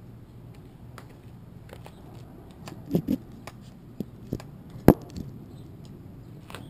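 Handling clicks and knocks of a PVC pipe and a plastic fitting being pulled off it: a quick double knock about three seconds in, a few light ticks, then one sharp loud click just before five seconds.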